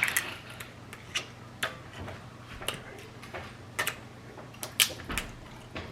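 Blue crab shell cracking and snapping as it is broken apart for eating: about a dozen sharp, irregular clicks and cracks, a few close together near the middle and end.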